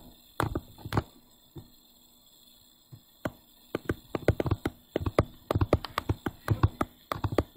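Stylus tapping and clicking on a tablet screen while writing by hand: a few scattered taps, then a quick irregular run of taps from about three seconds in.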